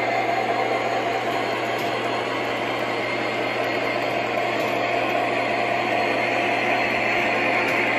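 O scale model train with Santa Fe diesel locomotives running along the track: a steady whirring and rumbling from motors and wheels on rail, over a constant low hum.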